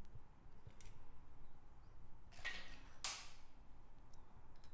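A short scrape followed by a sharp click, from a hand tool pressing down on a valve bucket in a Honda CBX cylinder head, with a few faint ticks before it.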